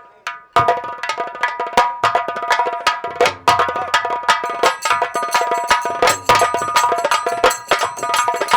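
Nautanki band music starting up about half a second in: fast, dense drum strokes with bright ringing metallic percussion over held notes.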